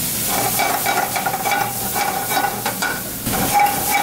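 Andouille sausage and green onion bottoms sizzling in clarified butter in a pan, stirred with a utensil that clicks and scrapes against the pan. A steady whining tone runs through most of it, breaking off briefly near the end.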